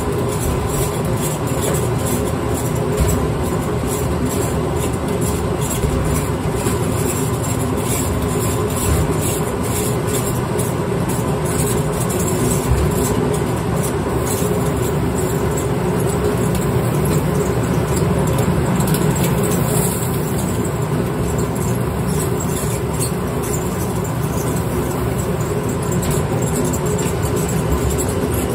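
Motorized brewery grain mill running steadily as it crushes malt for a Kolsch, a constant machine hum over the rushing rattle of grain.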